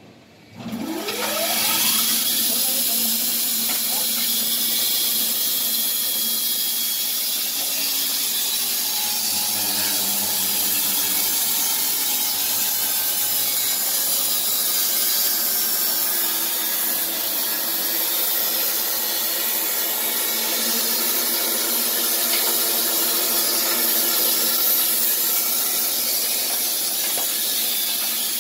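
Wood-Mizer LT15 band sawmill starting up about a second in with a rising whine, then running steadily as its band blade cuts lengthwise through a log with a loud, hissing sawing noise.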